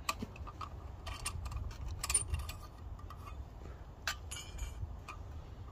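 Light metallic clicks and clinks of an old gas lantern on a blue gas cartridge being handled, with a couple of short ringing metal taps about two and four seconds in.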